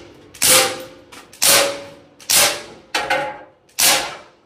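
Dan Wesson 6-inch CO2 air revolver fired five times in quick succession, shots roughly a second apart, each a sharp pop with a short decaying tail. The cylinder is loaded with a mix of .177 steel BB shells and pellet shells, and it fires both.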